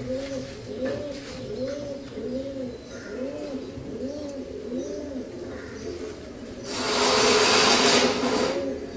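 Old German Cropper pouter pigeons, crops inflated, cooing: a low coo rising and falling in pitch, repeated about every three-quarters of a second. About two-thirds of the way through, a loud rushing noise lasting about two seconds covers it.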